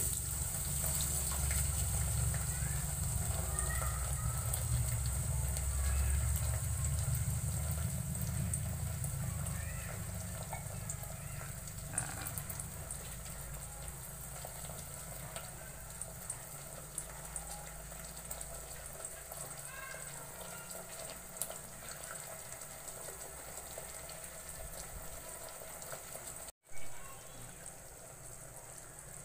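Canned sardines in tomato sauce sizzling and simmering in an aluminium pot on a gas burner, poured onto sautéing onion and garlic at the start. A low rumble in the first several seconds fades out, and the sound cuts out briefly near the end.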